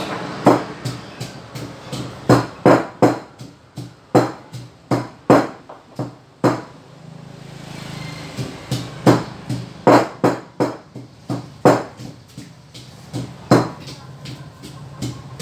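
Wooden pestle pounding in a mortar, crushing chillies and sugar: sharp knocks about twice a second, with a pause of about two seconds just past the middle.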